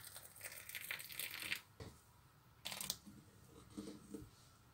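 Boiling water poured from a steel kettle into a clay teapot of loose tea: a splashing pour for about a second and a half, then a brief second pour near the three-second mark.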